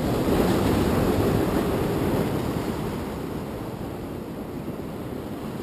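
Rough ocean surf breaking against jetty boulders: a wave crashes and washes over the rocks, loudest at the start and slowly fading over the next few seconds.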